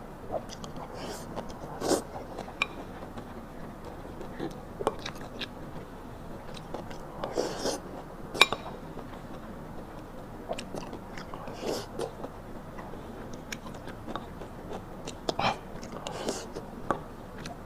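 Close-up chewing and lip smacking of a person eating rice with stir-fried eggplant and pork, with irregular short clicks and soft wet bursts every second or so.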